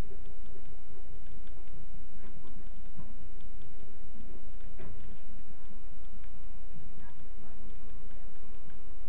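Light, irregular metal clicks, several a second, from a hand-held aluminium drift being worked around the thin folded lip of a speedometer bezel, pressing it down onto the instrument body. A steady low hum runs underneath.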